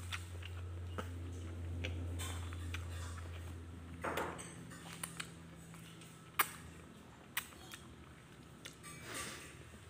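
Eating noodles with wooden chopsticks: scattered sharp clicks of the chopsticks against the plate, the loudest about six seconds in, and a slurp of noodles about four seconds in, over a steady low hum.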